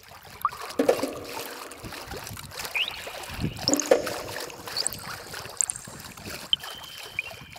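Outdoor water-and-wind ambience: a steady hiss with scattered light knocks and splashes, and a few brief high rising chirps.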